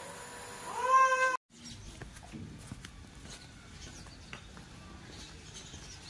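A cat meowing once, a rising call about a second in. The sound then cuts off abruptly and gives way to faint background noise.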